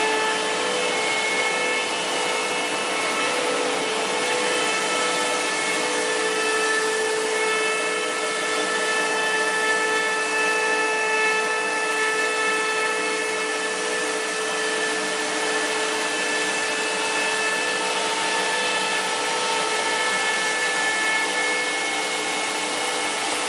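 Twin-screw extruder pelletizing line running steadily. It makes a continuous mechanical hum with several steady whining tones over a hiss, as the motors drive the line and the strand pelletizer cuts plastic strands into pellets.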